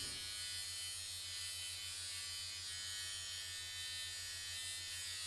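A small battery-powered facial hair removal device buzzing steadily as it is run over the skin of a forearm.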